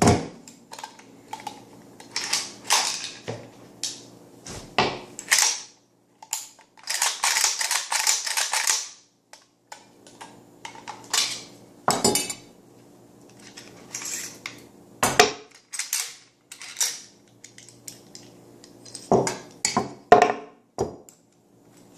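Metal clicks, clacks and knocks of a Yugoslav AK rifle being field-stripped by hand, parts unlatched and pulled apart one after another, with a longer scraping stretch of about two seconds some seven seconds in.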